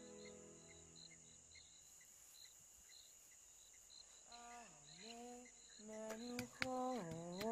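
Crickets chirping faintly in an even rhythm. About halfway through, a voice starts humming low notes that dip and rise in pitch, in two phrases, with a few sharp clicks near the end.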